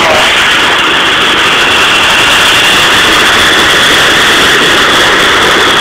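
Jet engines of a China Airlines Boeing 747 freighter taxiing close by: a loud, steady rush with a high, even whine over it.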